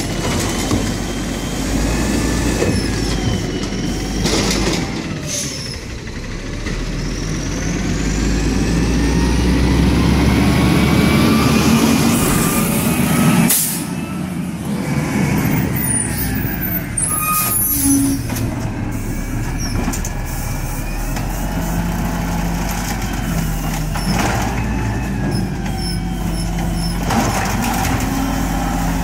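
Peterbilt 320 garbage truck with an Amrep Octo automated side-loader arm at work: engine running, with hydraulic whines that rise and fall as the arm lifts and lowers recycling carts, and a hiss of air brakes about halfway through as the truck moves between stops.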